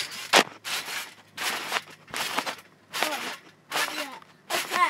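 Someone bouncing on a trampoline: a regular rustling thump about every three-quarters of a second, with short squeaks in several of the bounces.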